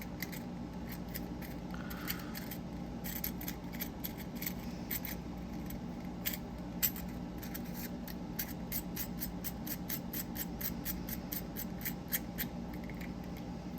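A metal telephone-dial fidget toy being turned by hand, its dial clicking through its detents in a string of small sharp clicks. The clicks come scattered at first, then in a quick, even run from a little past halfway.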